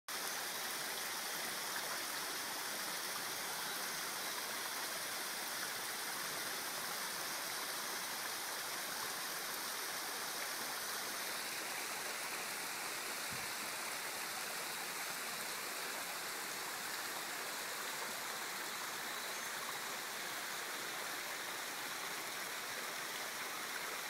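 Waterfall running, a steady hiss of falling and splashing water with little low rumble.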